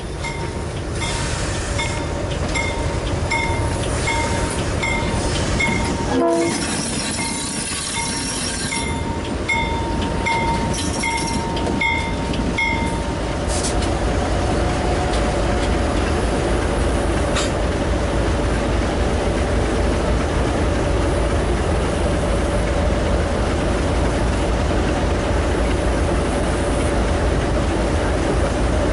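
General Electric B23-7 diesel locomotives with 12-cylinder engines rumbling as they pass slowly close by, pulling a freight train. For the first dozen seconds a bell rings about twice a second. From about halfway a steady high tone joins the engine noise.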